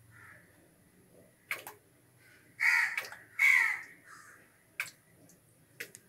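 A crow cawing twice, two harsh calls in quick succession near the middle, with a few sharp clicks before and after.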